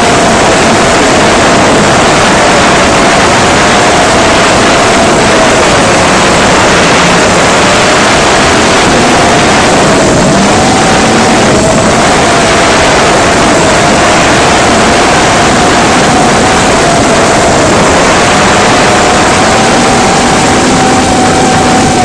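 Cinequeen FPV quadcopter's motors and propellers whining steadily, the pitch wavering up and down, over a loud rush of wind on the onboard camera's microphone.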